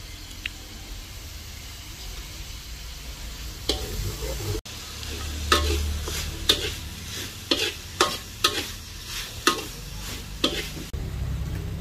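Food frying in a pan while a utensil stirs it. From about a third of the way in, the utensil scrapes and knocks against the pan about once a second.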